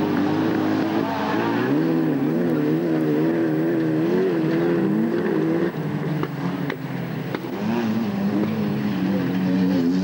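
Autocross race car engines running hard on the dirt track, their pitch wavering up and down as the drivers work the throttle. The engine note drops briefly about six seconds in, then a nearer car's engine comes up loudly toward the end.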